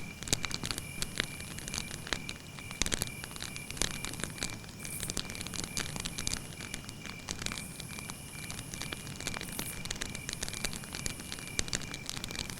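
Wood campfire burning, crackling with frequent sharp pops and snaps of varying strength over a low hiss.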